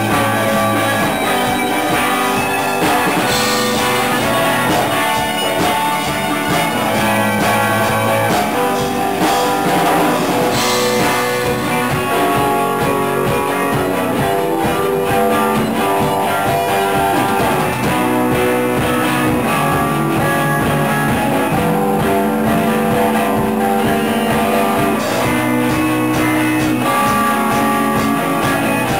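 A rock band playing together: amplified electric guitars over a drum kit, with a steady beat and held guitar notes.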